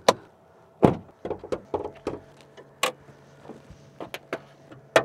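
A string of sharp clicks and knocks as a 2023 Chevrolet Colorado's hood is released from inside the cab and lifted open. The loudest is a single heavier knock about a second in.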